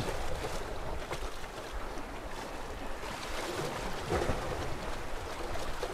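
Sea swell washing and splashing against the rocks below, a steady hiss of surf, with low wind rumble on the microphone.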